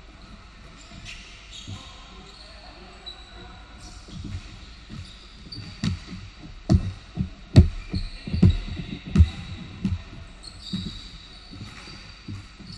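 Basketball bouncing on a hardwood gym floor: scattered thuds, bunched together about halfway through, with short squeaks of sneakers on the court.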